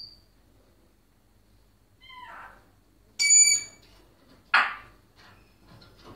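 African grey parrot calling: a short high chirp at the start, a falling call about two seconds in, a loud clear whistle just after three seconds, and a loud harsh call about four and a half seconds in, followed by a few softer short calls.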